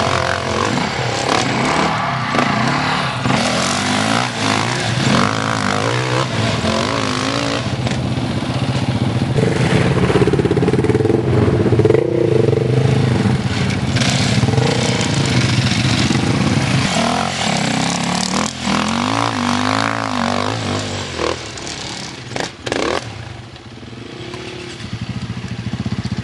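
Off-road enduro motorcycle engines revving hard on steep hill climbs, the pitch rising and falling with the throttle. Near the end the engine noise drops away, with a few sharp knocks.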